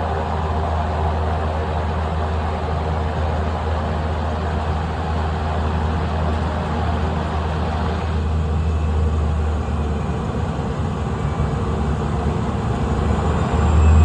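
Small plane's engine and propeller running steadily, then throttling up louder about thirteen seconds in.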